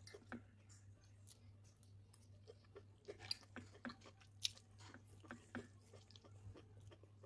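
Faint eating sounds: soft, irregular clicks and smacks as stir-fried noodles are eaten with a fork, over a low steady hum.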